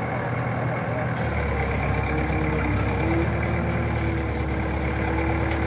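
Excavator's diesel engine running steadily. About a second in, the low engine sound grows heavier, and from about two and a half seconds a steady mid-pitched whine is held over it.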